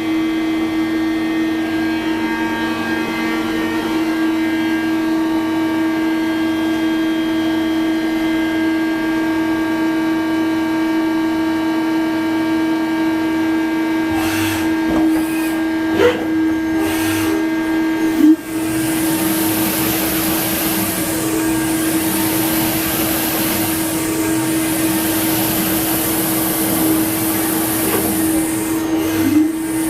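Spinner TC-65 CNC lathe running with a steady humming tone. A few clicks come just past the middle, then a sharp clunk about two-thirds of the way in, after which a high hiss sets in, swelling and easing over the hum.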